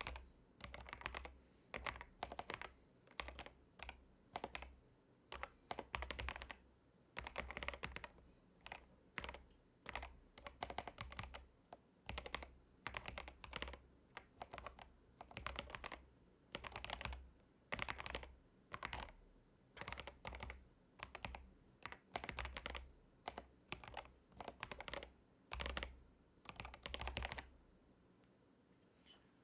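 Epomaker DynaTab 75X mechanical keyboard being typed on fast, in quick runs of keystrokes with short pauses between words. The typing stops near the end.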